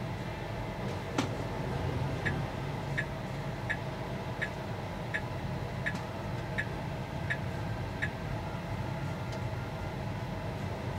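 Tesla Model 3 rolling slowly, heard from inside the cabin as a steady low rumble. A single sharp click comes about a second in, then the turn-signal indicator ticks nine times, about once every three-quarters of a second, while the car turns.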